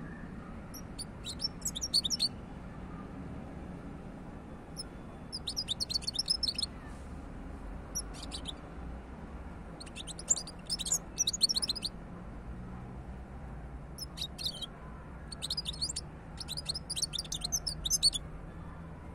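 A caged European goldfinch singing: short bursts of rapid, high twittering, about seven phrases with pauses between them.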